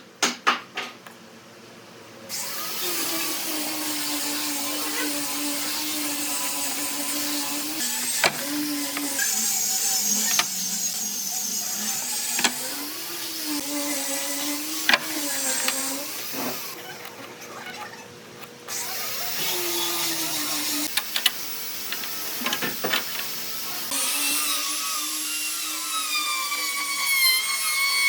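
Handheld electric power tool running with a whine whose pitch wavers up and down as it works the wood, cutting out twice briefly, with a few sharp knocks.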